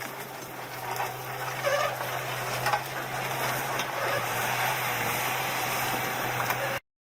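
A machine's engine running steadily with a low hum and scattered clattering, cutting off abruptly near the end.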